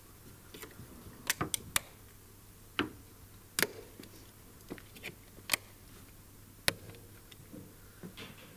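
Plastic retaining clips of a Mercedes W211 windshield cowl clicking as they are pried out of the metal body panel with a clip tool and handled: about ten sharp, irregular clicks, the loudest about three and a half and six and a half seconds in.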